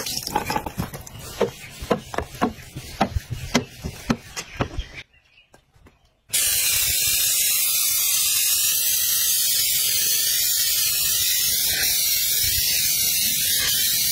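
Aerosol spray can hissing in one long, steady, loud spray that starts about six seconds in. Before it comes a run of sharp clicks and taps over a hiss, then a brief near silence.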